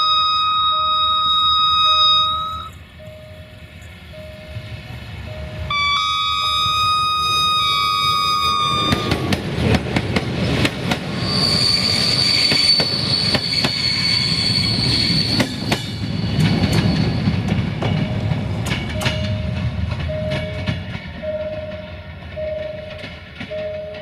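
Diesel locomotive's multi-tone air horn blows twice: the first blast ends about two seconds in, the second lasts about three seconds from around six seconds in. The passenger train then passes close by, its wheels clacking over the rail joints with a high wheel squeal, and it trails off near the end. A level-crossing warning signal beeps steadily under the horn at the start and again once the train has passed.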